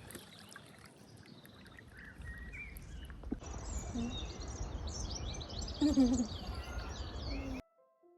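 Outdoor ambience: small birds chirping and singing over a low rumble of wind on the microphone, which grows louder about a third of the way through. It cuts off abruptly near the end.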